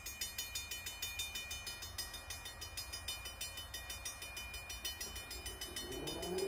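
Train rumbling low and steady, over an even, rapid high-pitched pulsing. Near the end a train horn starts to sound, sliding up and settling into a steady chord.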